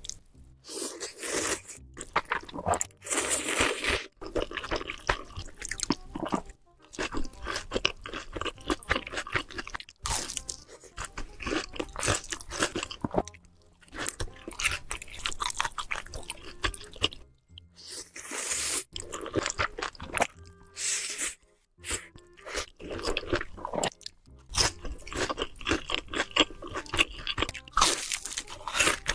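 Close-miked eating: loud crunching bites and chewing of crisp food, in runs broken by short gaps, over background music.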